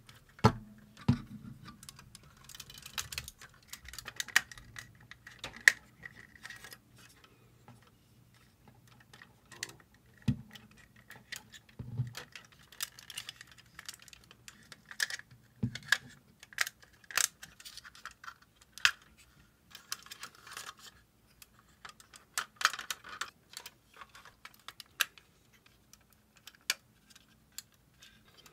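Parts and joints of a Metal Composite Zeta Plus action figure clicking, snapping and rubbing as it is folded by hand into its Wave Rider mode. The clicks come irregularly, with short stretches of scraping between them.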